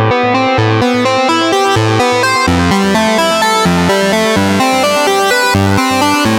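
Electronic music played on a 1970s-style synthesizer preset from Tracktion Collective, with a fast run of pitched synth notes over a pulsing bass line and drums.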